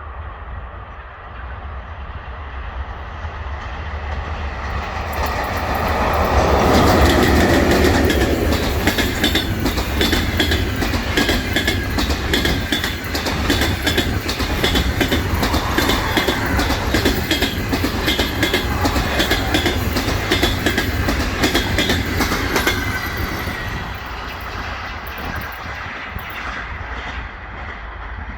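A passenger train hauled by an EP1M electric locomotive passes close by. It grows louder over the first several seconds, then its wheels clatter rapidly and steadily over the rail joints, and it fades away near the end.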